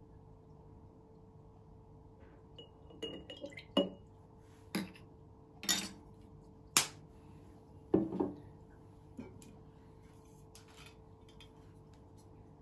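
Glass clinking and knocking as lemon juice is measured with a plastic spoon into a glass jar: about six sharp knocks and clinks, one with a short ring, from the bottle, spoon and jar touching each other and the table. A faint steady hum runs underneath.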